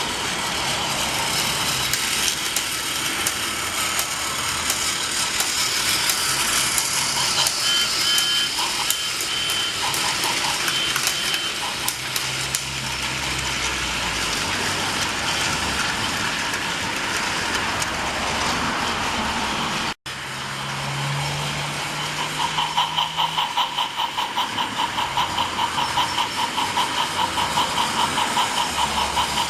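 Battery-powered Trackmaster toy locomotive's small electric motor and gearbox whirring as it pulls a long train of plastic trucks rattling along plastic track. The sound cuts out for an instant about two-thirds through, and afterwards takes on a fast, regular pulsing beat.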